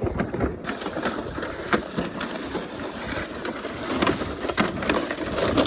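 Footsteps crunching through snow on top of lake ice at a walking pace, with each step making an irregular scuffing crunch.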